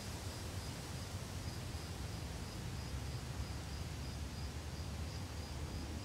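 Steady background hiss and low rumble of the room, with a faint high chirp repeating evenly about three times a second.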